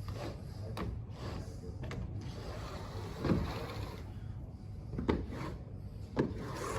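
A drywall corner glazing tool on an extension handle rubbing and scraping along an internal plasterboard corner, with several short knocks of the tool against the wall.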